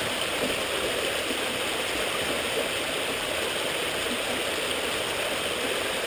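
Small creek running close by: a steady rushing and gurgling of water over a gravel sandbar.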